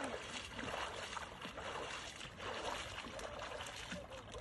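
Water splashing from a swimmer's strokes in a lake, in surges that come and go about once a second.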